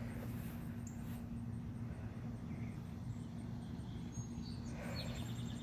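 Quiet garden ambience: a steady low hum under a faint high pulsing about four times a second, with a few short high bird chirps about four and five seconds in.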